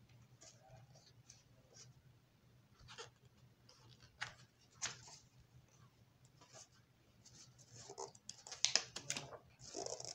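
Pages of a large hardcover picture book being turned by hand. Faint paper rustles and flaps, with a quicker cluster of them near the end.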